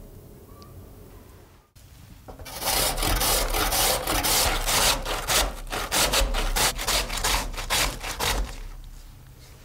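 A peeled raw potato rubbed up and down a stainless steel box grater: a fast run of rasping grating strokes starting a couple of seconds in and tailing off near the end.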